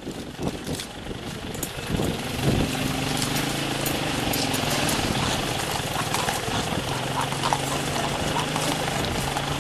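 A horse's shod hooves clip-clopping on the pavement against a steady idling engine hum that sets in about two seconds in, with crowd voices mixed in.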